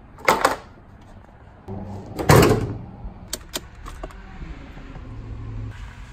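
The Toyota Celica GT-S's hood is shut with a slam just after the start, and about two seconds later the car's door is shut with a heavier thud. A few light clicks follow as keys are handled at the ignition.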